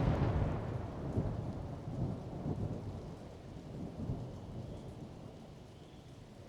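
Thunder rolling on after a close crack, with several smaller rumbles, dying away over about five seconds into steady rain.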